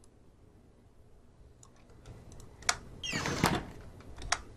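A door-closing sound effect played back: a short creak ending in a sharp shut, a little after the middle. Mouse clicks sound just before it and again near the end.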